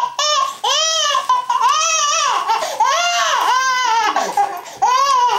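A baby crying hard: a string of high, wailing cries, each under a second long, broken by short catches of breath.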